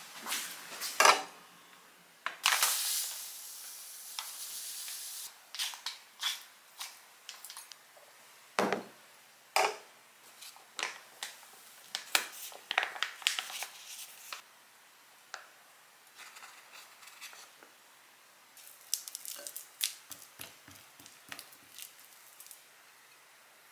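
Food preparation sounds: scattered clicks and taps of utensils and containers with rustling and crinkling of packaging, and a steady hiss lasting about three seconds near the start.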